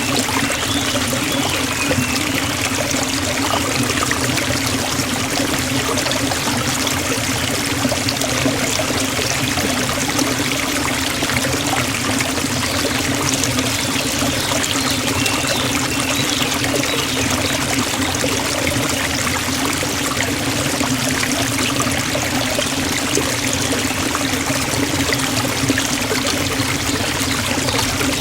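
Waterfall splashing in a steady, unbroken rush of falling water.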